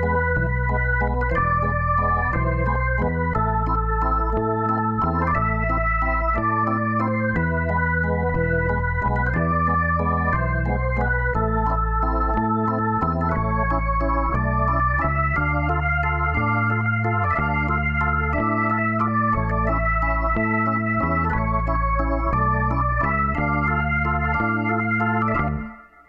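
Organ music: held chords over a moving bass line with a melody on top, cutting off suddenly just before the end.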